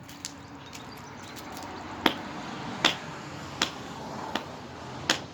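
Five sharp blows struck against an old Galaxy box fan as it is being smashed apart, about one every three-quarters of a second, beginning about two seconds in; the fourth is lighter.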